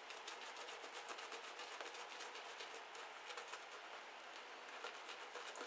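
Bristle shaving brush swirling Arko shaving soap lather on the face, a quick irregular run of small crackles and swishes.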